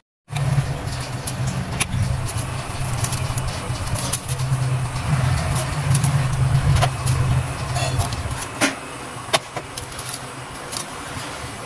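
Paper being handled, with scattered light crinkles and clicks, over a low steady rumble that stops about eight and a half seconds in.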